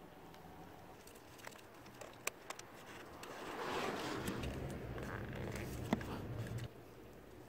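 Faint rustling and scraping of handling close to the microphone, with a few small clicks. A louder stretch of rubbing and rustling runs for about three seconds in the middle.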